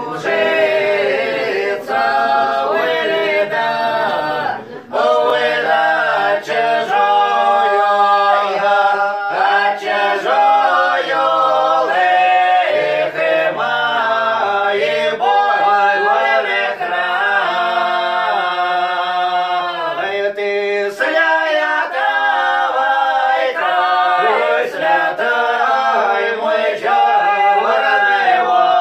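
Small unaccompanied folk choir of two women and two men singing a drawn-out Russian village song in several voice parts, with a brief break about five seconds in.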